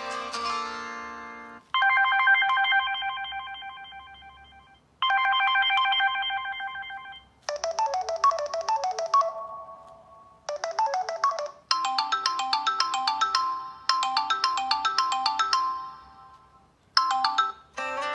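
Samsung Galaxy S5 stock ringtones playing one after another: short electronic melodies, each phrase repeating, with brief pauses between them as one tone ends and the next begins.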